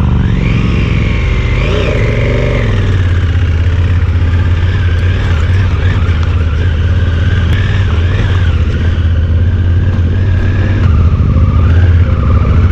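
Motorcycle engine running steadily as the bike rides along at low speed, heard from the bike itself: a constant low hum with a thin, wavering higher whine over it.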